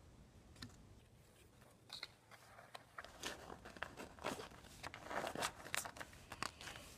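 Faint handling of a stack of Pokémon trading cards: soft rustles and quick flicks of card stock as they are shuffled and flipped through, starting about two seconds in.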